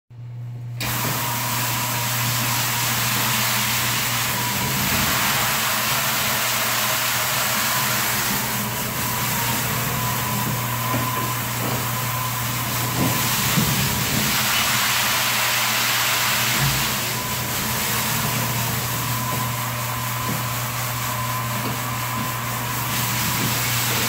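Nobles Speed Scrub 2601 walk-behind floor scrubber running on a wet concrete floor, starting about a second in. Its motors give a steady low hum under a high hiss, with a thin steady whine.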